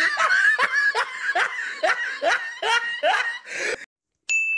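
Someone laughing in a rhythmic run of 'ha's, about two to three a second, stopping just before 4 s. After a short pause comes a steady, high electronic beep near the end.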